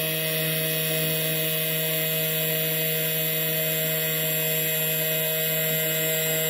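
Electric sander running steadily with a constant buzzing hum, its vibrating pad shaking a string tied to it into a standing wave.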